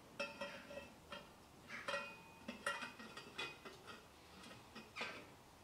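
3-inch 304 stainless steel exhaust pipe sections knocking and clinking together as they are fitted up by hand: a string of light metallic knocks, several with a short ring.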